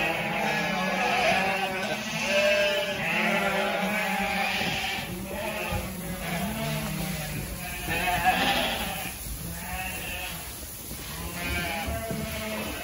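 A flock of ewes bleating loudly, many calls overlapping, in excitement at grain corn about to be fed. The calls are densest over the first few seconds and thin out toward the end.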